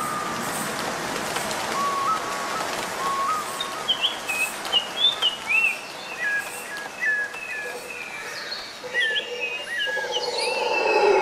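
Birdsong, many short chirps and whistles from several birds over a steady hiss, played as a recorded nature soundscape in the song's intro. Sustained musical tones enter near the end.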